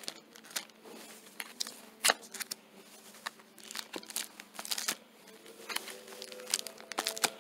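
Clear plastic magazine bags crinkling and clicking as old magazines are handled and flipped through on a rack, a scatter of irregular sharp crackles. Faint steady tones sit underneath.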